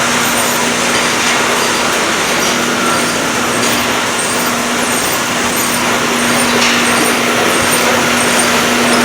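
Production-line machine running steadily: a constant hum with an even, hissing wash of machine noise over it.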